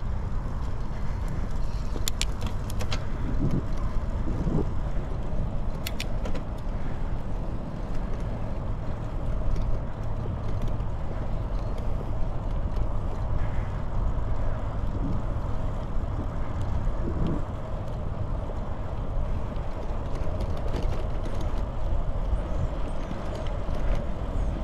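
Wind rumbling on the microphone of a moving bicycle, with its tyres rolling on a paved trail: a steady low noise. A few light clicks come in the first six seconds.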